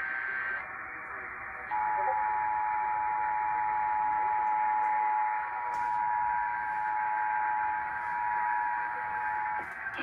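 Emergency Alert System two-tone attention signal received on AM radio: a steady two-note tone held about eight seconds, starting about two seconds in, marking a Required Monthly Test. Just after the start, the end of the alert's data signal, then a short gap, over radio hiss.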